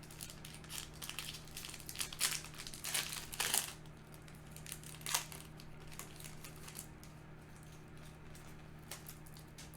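Foil Yu-Gi-Oh! booster pack wrapper crinkling and crackling in irregular bursts as a stubborn pack is worked free and pulled open. It goes quieter about halfway through.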